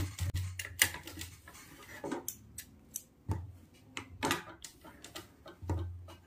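Electric sewing machine stopping, then scattered clicks and rustles as the stitched fabric is shifted and pulled off the machine, with a few brief low hums.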